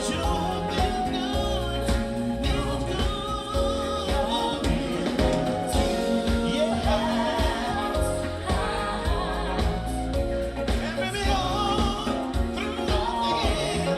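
Live band playing a soul-funk number with singing over a steady bass and drum beat.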